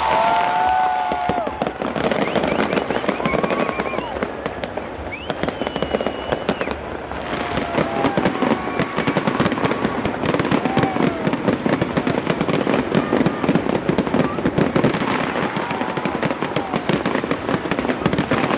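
New Year fireworks display: dense rapid crackling and popping that grows thicker and louder partway through, with short whistling tones over it and crowd voices underneath.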